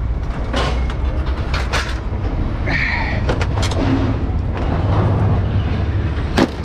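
Scrap metal being thrown off a truck onto a scrap pile: several sharp metal clangs and bangs at irregular intervals over a steady engine rumble, the loudest bang near the end, with a brief high metallic squeal about three seconds in.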